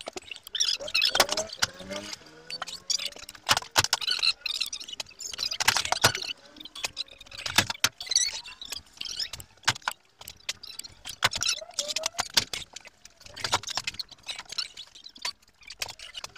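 Irregular metallic knocks, clatter and rattles inside a truck's diamond-plate steel cargo box, with many sharp hits coming every fraction of a second to a second.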